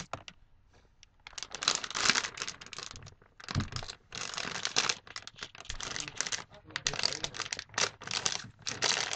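Clear plastic cone-shaped snack bag of popcorn being pulled open and handled: a few light clicks, then about a second in a long run of quick, sharp crinkles and crackles.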